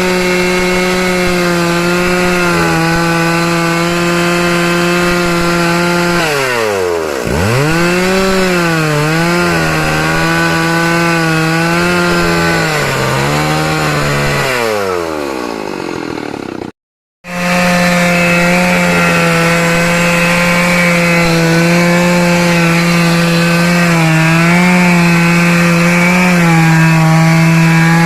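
STIHL two-stroke chainsaw running at high revs, cutting wood. Its engine note drops sharply and climbs back several times as the throttle is eased and reopened. It cuts out abruptly for a moment about two-thirds of the way through, then resumes at steady full speed.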